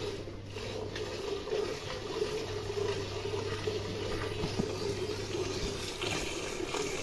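Milk squirting into a pail during hand milking of a cow, a steady liquid filling sound.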